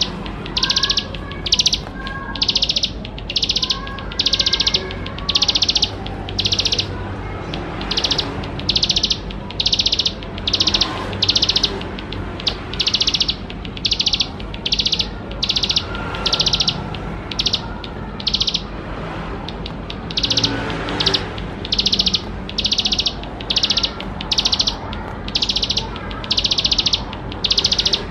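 Ciblek sawah, a prinia, singing a long series of repeated high, buzzy trilled notes, about one to two a second, with a few fainter whistled notes in the first seconds.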